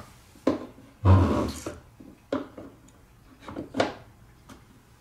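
Wooden blocks and a marble-run track piece knocking and shifting as they are set in place by hand: about five short knocks, the loudest a longer thump with a scrape about a second in.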